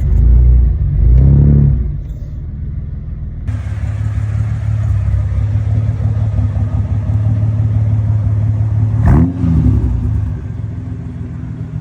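Holden VN Commodore engine, revved twice in the first two seconds, then running with a steady note while driving, with a quick swing in pitch about nine seconds in. Its owner calls the sound a purr.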